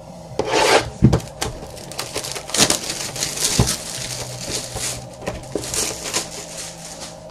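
Plastic shrink wrap crinkling and tearing as it is pulled off a sealed trading-card box, in repeated rustles mixed with a few knocks from handling the box.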